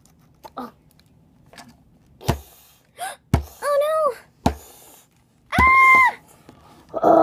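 Hard plastic toy figures knocked and set down on a tabletop, several separate thumps, with a child's voice making wordless play sound effects: a short wavering cry, a brief high squeal, and near the end a loud, long drawn-out call.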